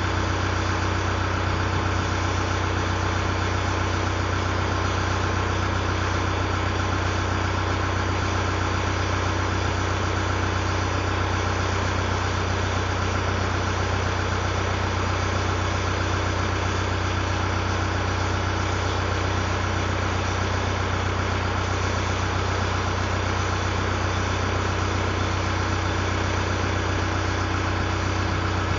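Truck engine idling steadily, run to check how it is going after work on its belts and radiator area.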